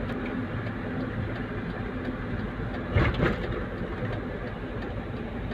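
Engine and road noise heard from inside a light truck's cab while driving, with a steady low hum. A brief louder burst comes about three seconds in.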